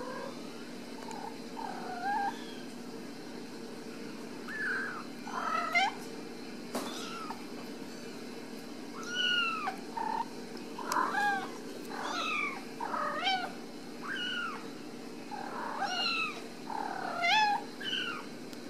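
Ragdoll kittens meowing: many short, high-pitched meows, sparse at first and coming thick and fast from about halfway, over a steady low background hum.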